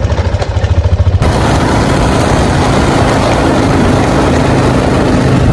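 ATV engine idling with an even low putter, then, about a second in, running steadily as the quad rides along a dirt track, with a steady rush of wind noise over it.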